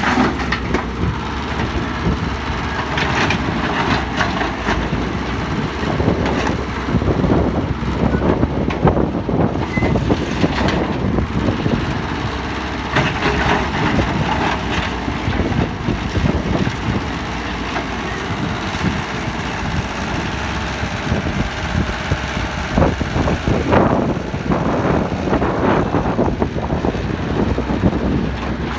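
Excavator working beside dump trucks: heavy diesel engines running steadily, with irregular clatter and knocks several times, typical of digging and loading a truck.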